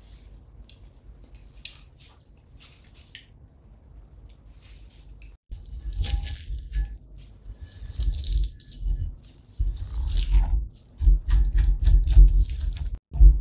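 A silicone spatula scraping shiso-miso paste around the ridged inside of a ceramic suribachi mortar: a run of loud raspy scraping strokes starting about five seconds in, after a quieter stretch with only a few light clicks.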